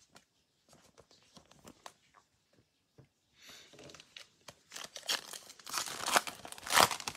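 Foil wrapper of a 2021 Mosaic baseball card pack being torn open by hand, crackling and crinkling, loudest near the end. Before it come faint taps and rustles of cards and the pack being handled.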